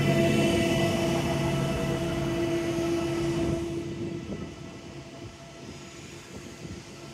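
A Newag Impuls II electric multiple unit pulling away from the platform, giving a steady electric hum over a rumble of running gear. The sound fades from about three and a half seconds in as the train moves off.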